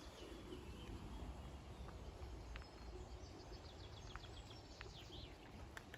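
Quiet outdoor background: a low steady rumble with a few faint bird chirps and soft clicks.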